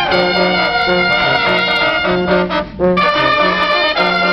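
Junkanoo band's brass horns playing a melody of held notes over a repeating low bass note, with short sharp percussion strikes.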